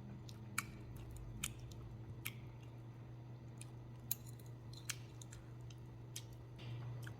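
A person chewing food, with soft mouth clicks and smacks about once a second, over a low steady hum.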